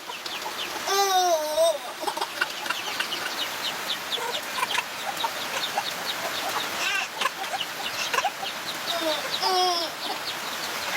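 Chickens calling: many short, high, falling peeps over a steady hiss, with a louder wavering call about a second in and again near the end.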